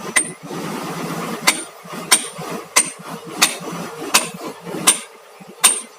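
Hammer striking steel excavator track parts in a steady series of sharp ringing blows, eight in all, about one every two thirds of a second.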